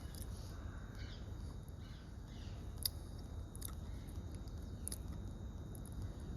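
Steady low rumble with several sharp clicks scattered through it, the loudest about three seconds in.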